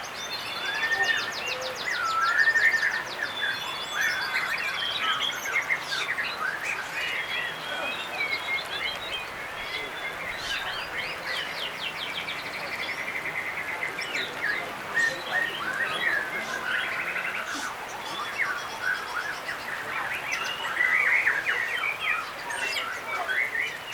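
Several white-rumped shamas (murai batu) singing at once in a dense overlap of whistles, rapid trills and chattering phrases.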